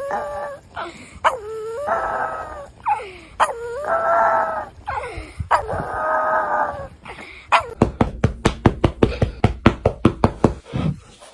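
Small black flat-faced dog howling, head thrown back, in about five long drawn-out notes that slide in pitch. Then, about eight seconds in, a rapid run of sharp knocks or taps, about seven a second, lasting a few seconds.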